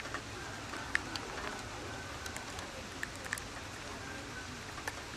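Light rain falling outdoors: a steady hiss with scattered small ticks of drops.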